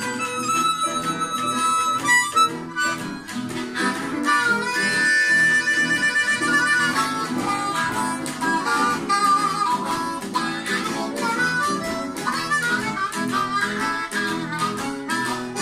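Blues harp (diatonic harmonica) played live, with long held notes and quicker phrases over a steady rhythm.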